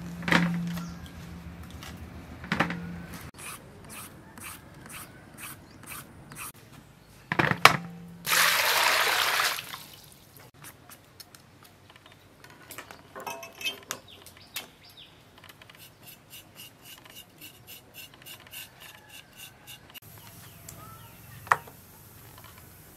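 Vegetable prep over a large steel bowl: a few knocks against the bowl that leave it ringing briefly. About eight seconds in there is a loud rush of water into the bowl for under two seconds. After that come light knife clicks and scraping as vegetables are cut.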